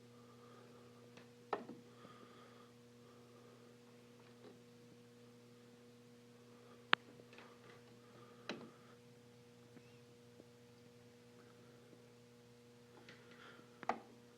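Steady low electrical mains hum, with a handful of sharp clicks and taps scattered through it. The sharpest click comes about seven seconds in.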